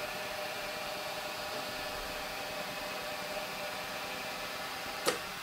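Stepper motors driving the ball-screw axes of a CNC-converted lathe/mill, a steady whine of several tones over a hiss. A sharp click about five seconds in.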